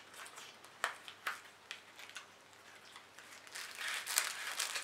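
Small cardboard package being handled and opened by hand: a few light taps and scrapes, then wrapping crinkling for about a second near the end as the contents come out.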